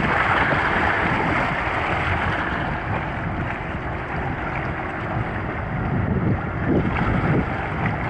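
Wind buffeting the microphone over small waves washing against the shoreline rocks.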